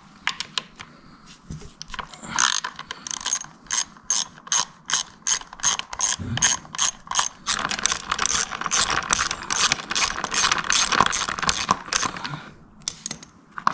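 Ratchet wrench backing out small 8 mm engine-cover bolts. The clicks come in short separate strokes at first, then run fast and continuously from about halfway, stopping near the end.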